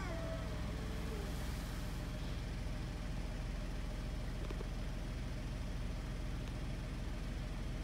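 A street cat's low, drawn-out growl trailing off in the first second, the threat call of a territorial standoff between two cats. After it comes only a steady low background hum.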